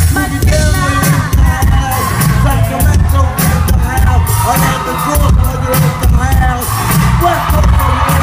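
Live pop concert music over a stadium sound system: a heavy bass beat with a singing voice on top.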